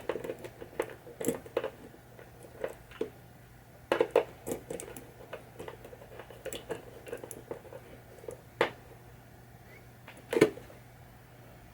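Scattered clicks and taps of small metal parts and a hand tool being handled while a pinball drop target bracket assembly is put back together, with the two sharpest knocks about four seconds in and near the end. A faint steady low hum sits underneath.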